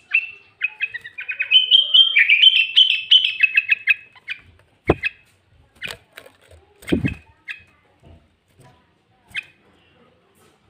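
Sooty-headed bulbul (kutilang) singing a fast, loud run of chirping notes for about four seconds, then giving a few scattered short calls. Two dull thumps come about five and seven seconds in.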